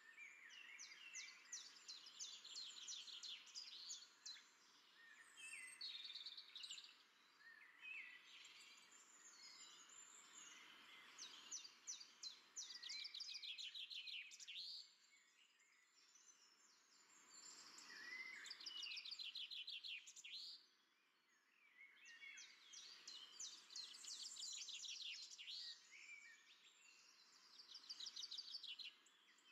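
Faint chorus of many small birds chirping, with rapid trills and short sweeping calls overlapping, over a light outdoor hiss.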